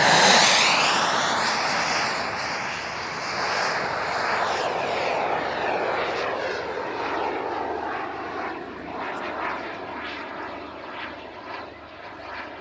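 Turbine engine of a large radio-controlled F-104 Starfighter jet model making a fast low pass. It is loudest about a second in, and its high whine drops in pitch as it goes by. It then fades steadily as the jet climbs away.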